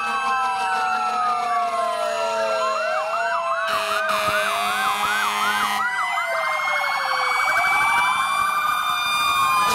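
Several fire truck sirens sounding at once and overlapping: slow rising and falling wails, with one siren switching to a fast yelp for a few seconds in the middle and then briefly to a faster warble.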